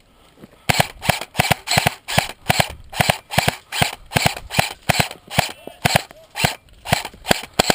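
Airsoft electric rifle fired semi-automatically in quick succession: about twenty sharp shots at roughly three a second, starting under a second in.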